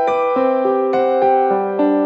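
Background music: a piano melody with notes struck every quarter to half second.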